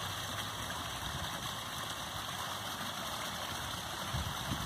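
Small garden waterfall pouring steadily from a stacked-stone spillway into a koi pond, a constant splashing rush of water.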